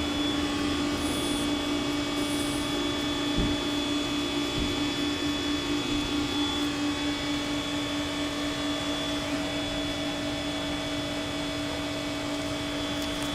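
Steady mechanical drone from a running machine, with a constant low hum and a fainter high tone that hold the same pitch throughout.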